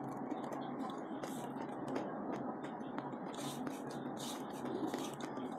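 Eating by hand: fingers mixing and scooping rice on a steel plate, with chewing and mouth sounds, as scattered soft rustles and a few small clicks over a steady low hum.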